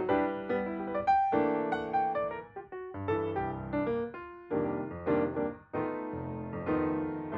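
Background music: a piano playing a gentle melody over chords.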